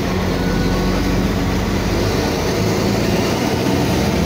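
Mercedes-Benz O500UA articulated city bus's rear-mounted OM 457 LA inline-six diesel with a free-flowing (open) exhaust, running with a steady, loud note, heard from inside the passenger cabin.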